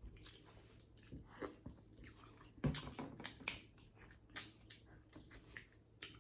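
Close-up snow crab shells being cracked and broken apart by hand: an irregular series of sharp cracks and snaps, loudest a little before the middle, mixed with biting and chewing. These legs are harder than the earlier, softer ones.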